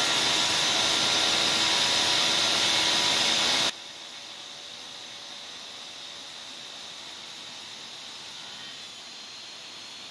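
Longde D7-1200 electric tile saw running with its blade in a ceramic tile: a loud steady motor whine with grinding noise. About four seconds in it drops abruptly to a much quieter steady hiss.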